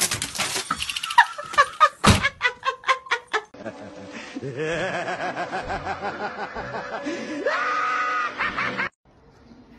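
A sudden loud sound, then about three seconds of a person laughing in quick bursts. Then a cat yowls in one long, wavering cry that rises near the end.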